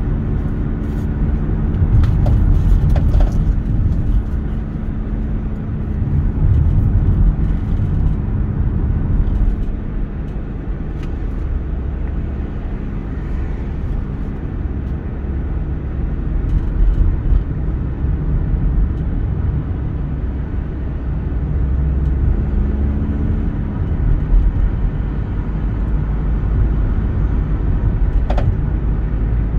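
Car driving on the road: a steady low rumble of engine and tyre noise, with a faint engine hum coming through at times and a few brief clicks about two seconds in and near the end.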